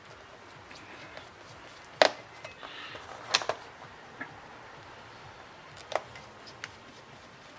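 Several sharp plastic clicks and taps, the loudest about two seconds in, with light handling between: tablet parts such as an internal plate being pressed and clipped into place during reassembly.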